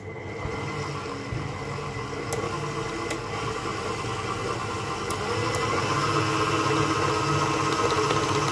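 Electric stand mixer running, its flat paddle beater creaming butter and powdered sugar in a steel bowl, a steady motor hum that grows louder over the first six seconds.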